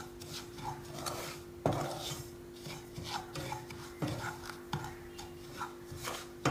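Wooden spatula stirring and scraping semolina (rava) around a nonstick frying pan as it roasts in ghee, in repeated rasping strokes, with a sharper knock against the pan about a second and a half in. A steady hum runs underneath.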